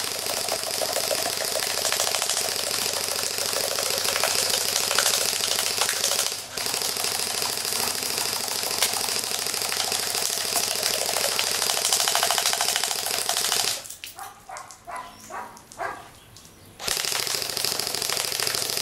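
Airsoft AK-47 rifle firing on full auto in long continuous bursts, a fast even rattle of shots. It stops for about three seconds around fourteen seconds in, with a few separate knocks, then fires again near the end.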